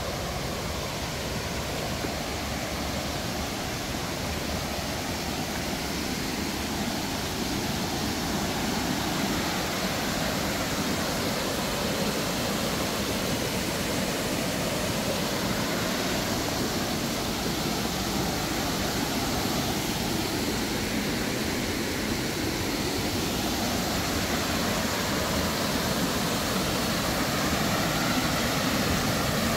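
River waterfall and rapids rushing steadily over rock, growing a little louder toward the end.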